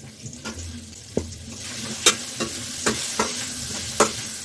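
Potato pieces tipped into hot oil and masala in a metal kadhai, sizzling, then stirred with a long metal spatula that knocks and scrapes against the pan in a run of sharp clicks. The sizzle grows louder from about a second and a half in.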